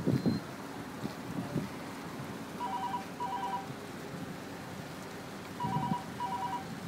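A telephone ringing with a double-ring cadence: two short rings close together, heard twice about three seconds apart. Under it runs a steady low rumble and hiss, with a few muffled thumps at the very start.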